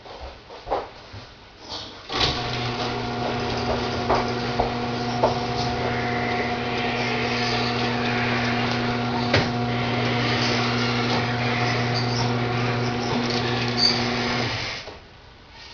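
An electric motor starts about two seconds in, runs with a steady low hum and a light rattle and a few clicks, and stops abruptly after about twelve seconds.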